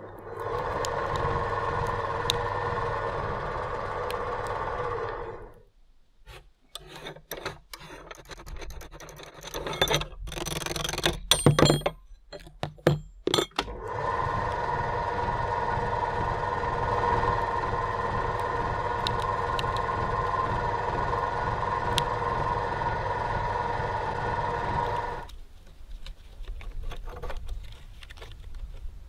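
Motor-driven meat grinder running with a steady hum, stopping after about five seconds. Metal clanks and knocks follow, loudest around ten to thirteen seconds in, as its ring nut and cutting plate are taken off. The motor then runs again until near the end, when crushed plastic rustles and crinkles as it is pulled out of the barrel by hand.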